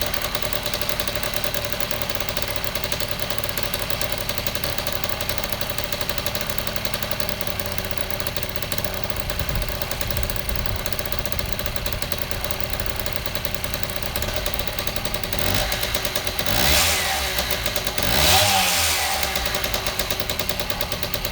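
Freshly rebuilt Piaggio moped's small two-stroke engine idling steadily, then revved twice near the end, its pitch rising and falling back each time.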